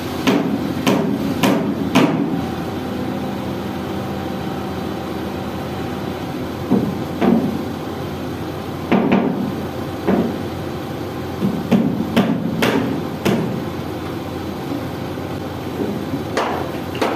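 Hammer blows on the steel bucket pin of a Hitachi EX200 excavator during a bucket change: about a dozen sharp metal strikes in irregular clusters, with a pause of several seconds after the first four. The excavator's engine idles steadily underneath.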